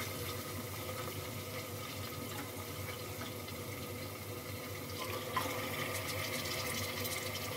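Hot oil sizzling steadily in an aluminium pressure cooker as raw mutton pieces are dropped into the fried ginger-garlic masala, with a light knock a little past five seconds in.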